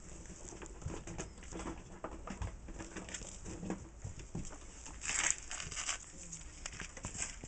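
Month-old pit bull puppies making small squeaking whimpers and scuffling about on a concrete floor, with a louder rustle about five seconds in.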